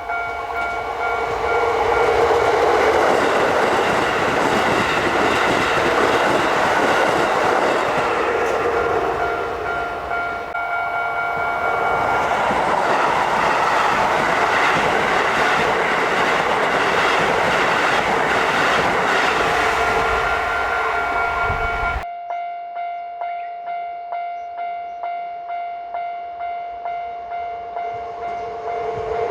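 Keisei electric train passing over a Japanese level crossing with clattering wheels while the crossing's electronic bell rings; the train noise dips briefly about a third of the way in and then rises again. Near the end the sound cuts off abruptly, leaving only the crossing bell ringing its steady 'kan-kan' at about one and a half strokes a second.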